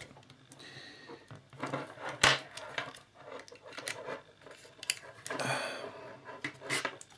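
Handling noise from a plastic microphone housing being pried apart by hand: scattered clicks and knocks, the sharpest about two seconds in, with a short rustling hiss a little past the middle.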